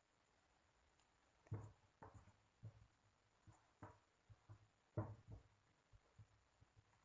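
Faint, irregular soft clicks and squishes of homemade borax-free slime being pressed and poked by hand, about a dozen in a few seconds.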